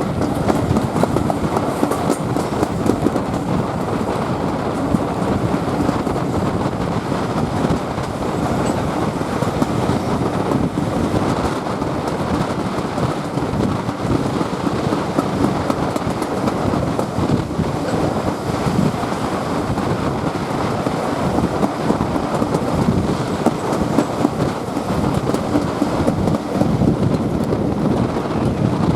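Steam-hauled train, double-headed by two GWR pannier tank locomotives, running along the line: a steady rumble and clatter of wheels on the track.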